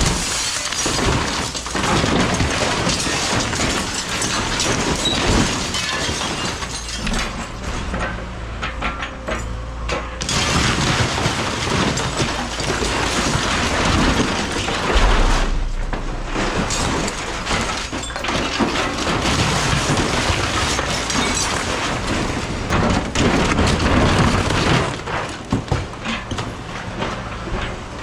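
Excavator tearing apart a single-wide mobile home: continuous crunching, cracking and breaking of debris, with many sharp impacts.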